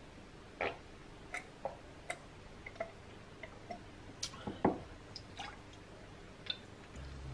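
Milk being drunk from a glass: a run of small gulps and mouth clicks, then a sharper knock about four and a half seconds in as the glass is set down on the wooden table. A few lighter taps follow as the carton is handled.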